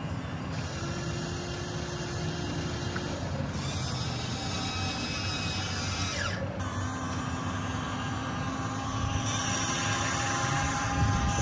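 Small electric motors of radio-controlled construction models whirring, with thin whines that start and stop as the machines move.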